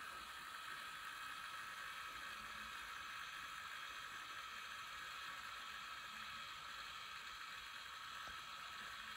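Small battery-powered electric motors spinning the four propellers of a 1/72 B-17F scale model: a faint, steady whir.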